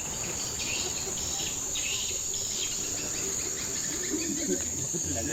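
Steady high-pitched drone of a forest insect chorus.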